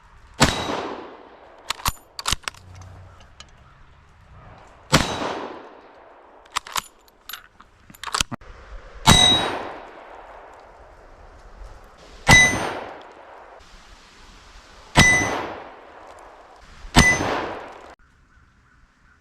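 8mm Mauser armour-piercing bullets striking a tool-steel target plate: six loud ringing clangs several seconds apart, each dying away over about a second, with a few smaller sharp clicks in between.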